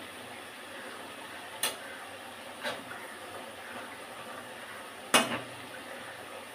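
A steel spoon knocking against a blackened kadhai while stirring curry: three sharp clinks, the loudest about five seconds in, over a steady hiss.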